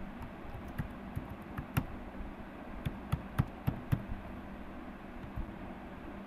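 Keystrokes on a computer keyboard as a password is typed: about a dozen uneven clicks over the first four seconds, with one more click about five seconds in, over a steady low hum.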